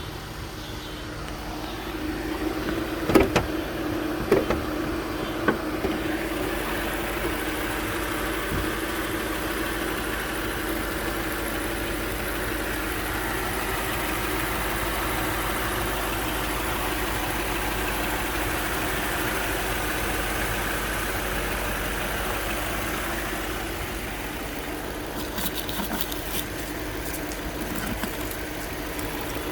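2006 Lexus LS430's 4.3-litre V8 idling steadily. A few sharp knocks come about three to six seconds in, and light clicking comes near the end.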